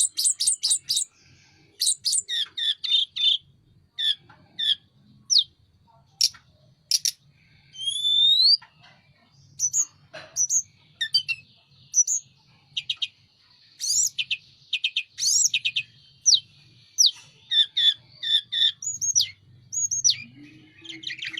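A tledekan gunung songbird singing continuously: rapid phrases of sharp chirps and quick whistled glides, high-pitched, with short pauses between phrases. A faint low hum runs underneath.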